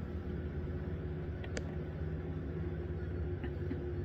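Steady low background hum, with one faint click about one and a half seconds in.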